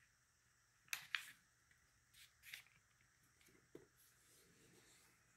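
Near silence, broken by a few faint, brief rustles of scrapbook paper being pressed flat and creased by hand: two close together about a second in, then a couple of softer ones later.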